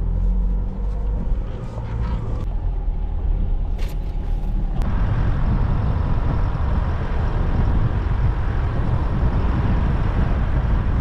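A vehicle's engine running with a steady low rumble. About five seconds in, the sound changes abruptly to a louder, steady rushing noise.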